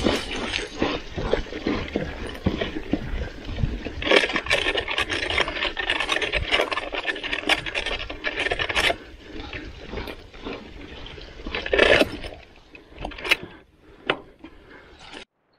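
Mountain bike riding over a rough, muddy dirt trail: continuous tyre noise on dirt with the bike rattling over bumps and many small clicks and knocks. The noise is loudest over the middle stretch, eases off, then a loud burst comes about twelve seconds in, followed by a few knocks.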